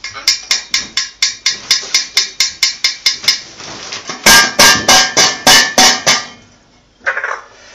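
Enamel pot lid rattling and clanking as a green parrot lifts and drops it with its beak: a quick run of about five light clacks a second, then a handful of louder, ringing metal clanks.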